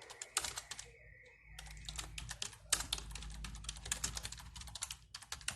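Typing on a computer keyboard: a quick, irregular run of key clicks with a short pause about a second in, as a search query is typed in. A low hum sits underneath from about a second and a half in.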